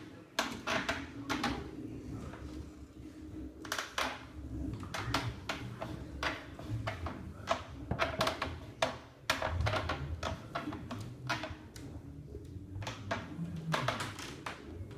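Self-balancing hoverboard creaking and clunking irregularly as it jerks, with sharp clicks several times a second over a low hum: a fault in the board.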